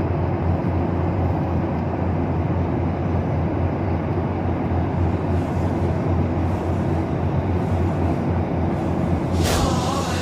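Steady, even drone of a jet airliner's engines and airflow heard inside the cabin in cruise flight. A sudden burst of noise cuts across it near the end.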